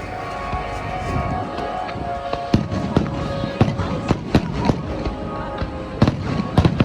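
Fireworks shells bursting in a rapid run of sharp bangs and cracks, starting about two and a half seconds in, over music playing for the show.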